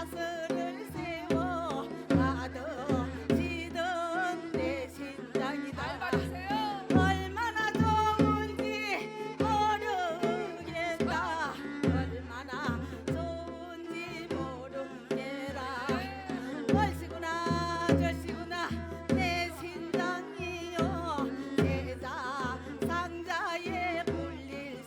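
Korean shamanic ritual (gut) music: a drum beats a steady, driving rhythm under a wavering, sliding melody line.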